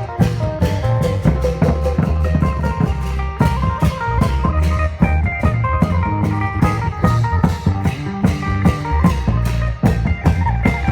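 Isan klong yao long-drum band playing: a fast, steady drum beat under heavy bass and a melodic plucked lead.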